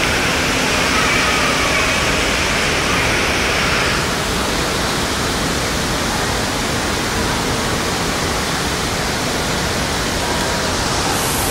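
Steady rush of running and splashing water from the pools and water features of an indoor water park, a loud even noise with no distinct events.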